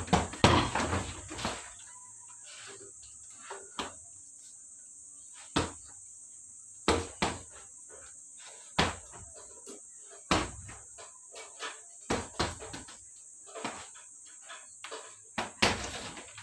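Gloved punches hitting a hanging heavy bag. A quick flurry of hits comes at the start, then single punches every second or two, and another flurry near the end.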